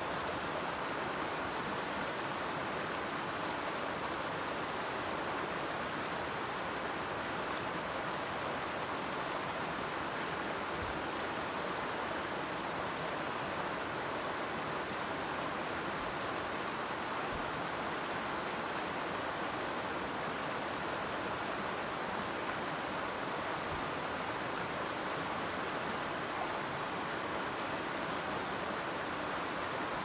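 Shallow river running steadily, an even wash of flowing water with no breaks.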